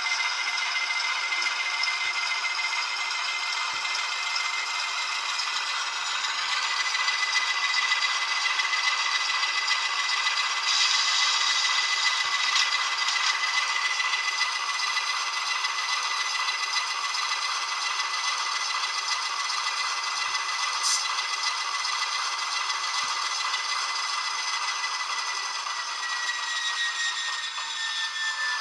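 ESU LokSound 5 Micro decoder playing its ALCO 6-539T diesel engine sound through a tiny 8x12 mm sugar cube speaker in an N scale RS-1. The engine sound is thin and raspy with no bass, and a steady high whine runs through it. The whine sags in pitch near the end, and the engine sound swells a little partway through.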